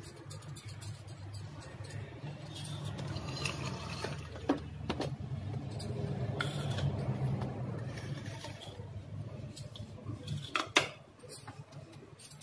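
Metal kitchen utensils and an aluminium kadhai clinking and knocking a few times, loudest near the end, over a steady low hum and a hiss that swells and fades in the middle.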